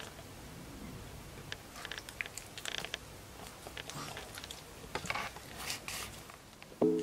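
Pekingese puppy licking and smacking at a Churu paste treat: a scatter of small, soft clicks and smacks. A piano note comes in right at the end.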